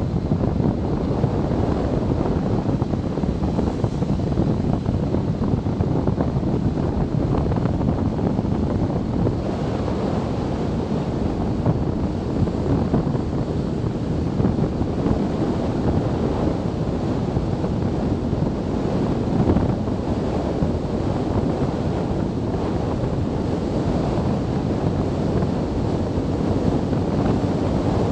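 Steady wind buffeting on the microphone of a camera riding on a moving motorcycle at about 30 to 40 mph. Beneath it runs the BMW K1300S's inline four-cylinder engine.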